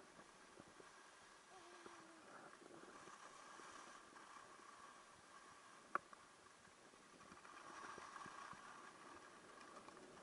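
Faint hiss of skis sliding over packed snow, swelling twice as the skier turns, with a single sharp click about six seconds in.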